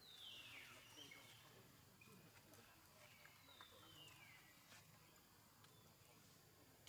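Near silence broken by two faint high animal calls, each a whistle sliding down in pitch over about a second, the second coming about three seconds after the first.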